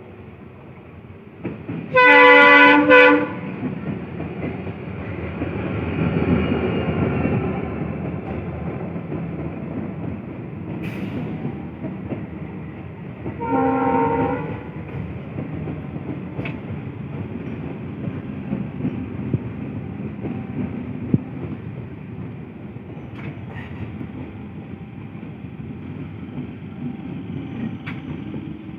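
Electric multiple-unit (EMU) local train sounding its horn, a blast of about a second a couple of seconds in and a shorter one near the middle. The train then runs past close by with a steady rumble and clatter of wheels on the rails.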